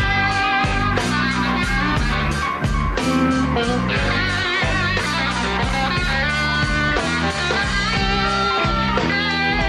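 Live electric blues band playing a slow blues: an electric guitar lead with bent, wavering held notes over low backing notes and drum hits.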